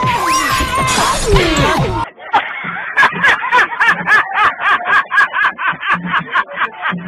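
Edited-in comedy sound effects, with sliding and falling tones over a crashing hiss, cut off sharply about two seconds in. Background music with a fast, steady beat, about four beats a second, follows.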